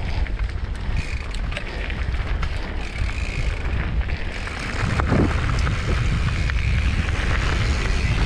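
Wind buffeting the microphone over a mountain bike's tyres rolling on a loose gravel trail, with scattered clicks and rattles from stones and the bike. It grows louder about halfway through.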